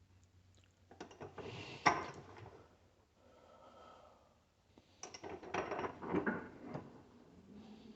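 Small hard parts clattering and clicking as they are handled and pulled apart, in two short bursts of knocks with a softer scraping rustle between them. A low steady hum starts near the end.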